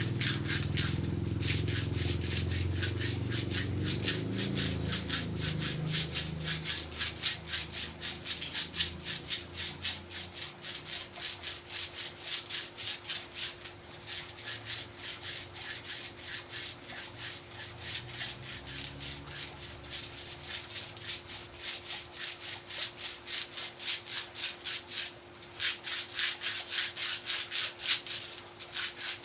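Quick, rhythmic rubbing strokes on skin during a massage, about three or four strokes a second with short pauses. A low rumble runs under the first several seconds.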